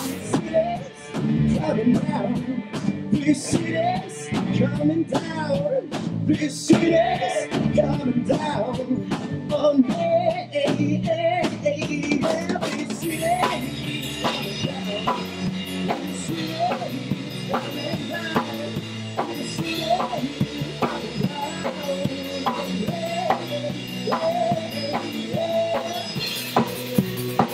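Rock band playing a song: electric guitars over a drum kit keeping a steady beat.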